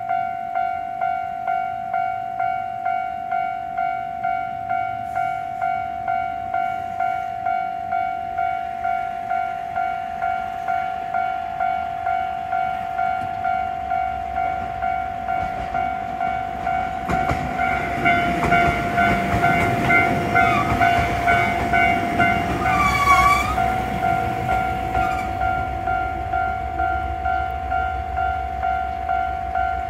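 Railway level-crossing alarm ringing steadily at about two strokes a second as a diesel train on the Gono Line approaches and passes. The train's rumble and wheel noise build from about halfway and are loudest in the last third, with a short horn blast during the pass.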